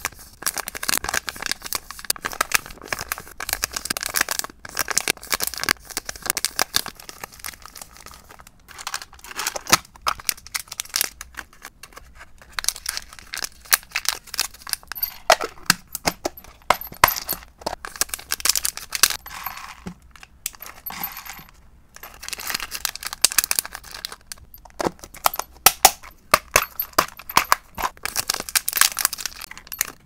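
Crinkling of a clear plastic zip bag being handled and opened, clicks and taps of plastic storage containers and lids, and near the end small dry hamster treats clinking as they are scooped from a plastic tub.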